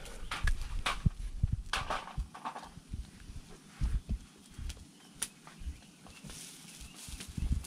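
Scattered sharp crackles and clicks from a small fire of dry straw and bamboo burning under a goat carcass, over irregular low thumps and rumble.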